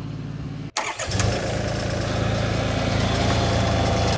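Ditch Witch SK850 compact tracked loader's engine running steadily. It is heard faintly at first, then after a sudden break about a second in it is much louder and closer.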